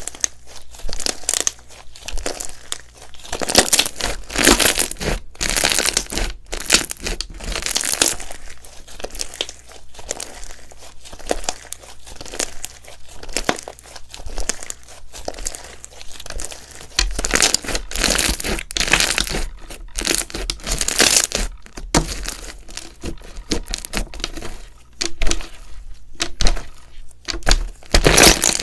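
Slime being squeezed, stretched and pressed by hand, giving an irregular run of crackling, crinkly pops and squelches.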